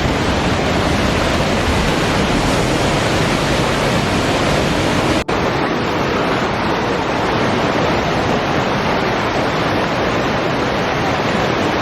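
Steady rushing of flowing water, an even hiss-like roar, with a momentary dropout a little over five seconds in.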